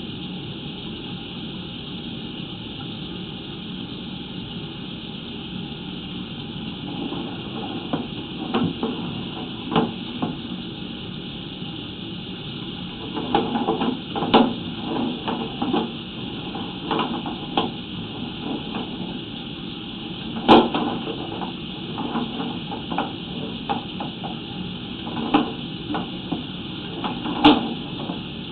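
Sewer inspection camera rig knocking and bumping in the pipe as it is pushed along, over a steady hiss. The knocks come singly at first, bunch together in the middle, and one sharp knock stands out about two-thirds of the way through.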